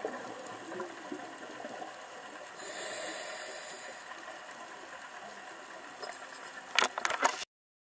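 Underwater sound of a scuba diver breathing: the regulator hisses on an inhale a few seconds in, against a steady watery background. A few sharp clicks come near the end, then the sound cuts off abruptly.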